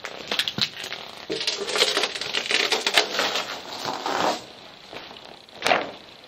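Debris crunching and crackling underfoot in a decaying building: a dense run of crunches from shortly after the start until past four seconds, then one more short crunch near the end.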